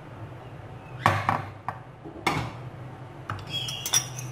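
A few separate knocks and clinks of glass bowls and a metal spoon or fork on a kitchen counter, with a short ringing clink near the end.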